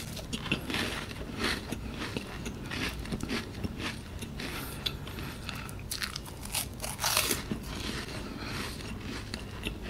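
Crisp cream wafer (Nabati pink lava flavour) being bitten and chewed: a string of irregular dry crunches.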